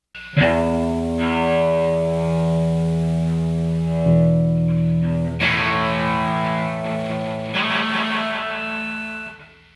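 Distorted electric guitar playing long held chords that ring out, changing chord a few times and fading out near the end.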